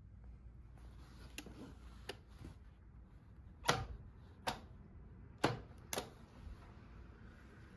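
Harley-Davidson EVO starter clacking four times without turning the engine over as the starter button is pressed, even with a jump pack on the battery. Each clack is sharp with a short ring, and two fainter clicks come first. The starter engages but jumps, which the owner puts down to a loose starter mounting bolt and too little current reaching it, though a seized engine would sound the same.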